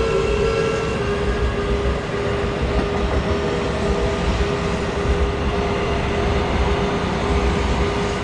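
A train running by: steady noise of wheels on the rails with a constant hum.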